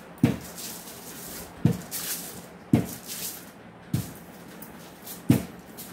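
Rolling pin rolling dough out on aluminium foil over a wooden table: a crinkling rustle of the foil, broken by five sharp knocks about a second apart.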